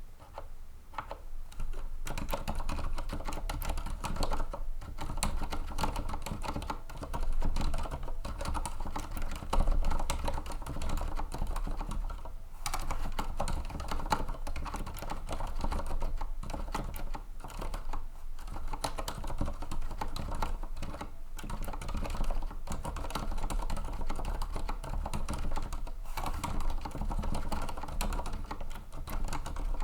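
Typing on a TEX Shinobi mechanical keyboard with silent red switches: a fast, steady patter of soft key presses, with brief pauses now and then.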